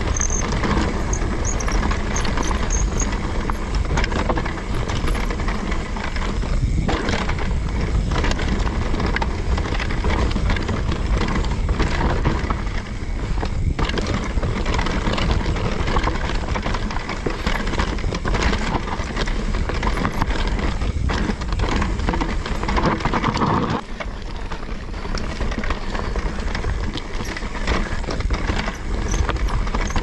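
A mountain bike descending a dirt singletrack: knobby tyres rolling over the trail and wind rushing over the microphone, with occasional clatter from the bike over rough ground.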